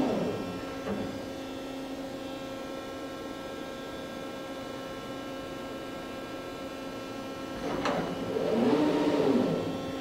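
Strippit 1500H30 CNC turret punch press running with a steady electrical hum. Near the end a drive motor whines up in pitch and back down over about two seconds, with a click as it starts: the turret indexing round to another station.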